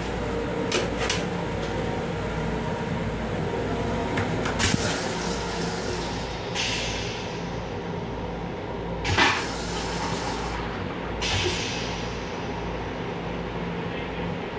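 Steady hum of an M7 electric railcar heard inside its restroom, with scattered knocks and rattles of the car's fittings, the loudest a sharp knock about nine seconds in, and a couple of brief hisses.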